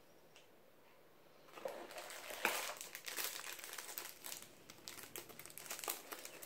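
Crinkling and rustling of clear plastic sleeves on a handful of individually bagged pens being picked up and handled, starting about a second and a half in, with many small crackles.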